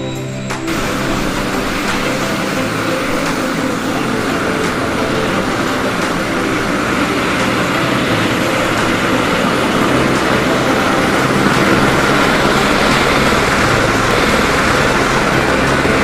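Airbus H225 Super Puma helicopter's rotor and turbines running in flight: a steady, dense rushing din with a low uneven throb, growing slowly louder.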